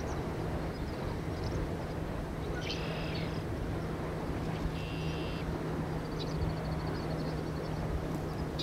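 Steady low rumble with a constant low hum underneath. Short high bird calls come about three and five seconds in, then a quick chirping trill a little past six seconds.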